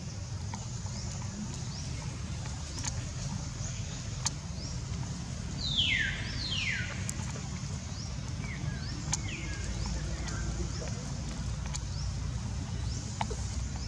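Two loud high calls, each falling steeply in pitch, about six seconds in, with a few weaker falling calls a few seconds later, over faint repeated high chirps and a steady low rumble.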